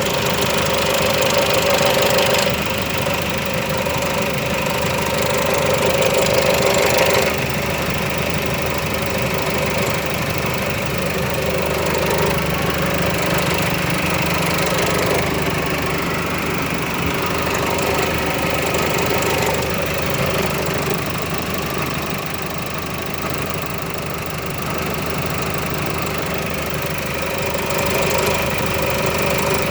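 Nissan Navara engine running at idle with a rapid, repeating knock coming from around the engine, a strange knock whose cause the owner does not know.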